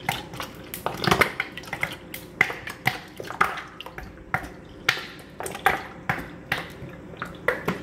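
Kitchen utensils and dishes clinking and knocking, irregular sharp taps a few times a second, while lemon juice is measured out.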